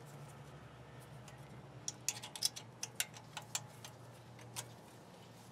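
Light metallic clicks and taps, about a dozen in a quick irregular run in the middle, as brake hardware clips are pressed into seat on a Chevy Silverado's front caliper bracket. A faint steady low hum runs underneath.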